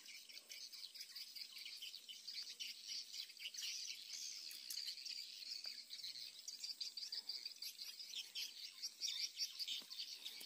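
Dense, continuous high-pitched chirping of insects, with bird calls mixed in.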